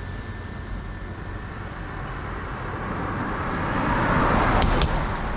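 A road vehicle approaching and passing by, its engine and tyre noise swelling to a peak about four seconds in and then fading, with a couple of sharp clicks as it goes past.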